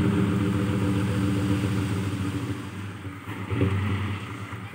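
Mitsubishi Fuso dump truck's diesel engine running at raised revs while the hydraulic hoist tips the bed, then easing back and quieter from about halfway through, with a short louder bump about three and a half seconds in.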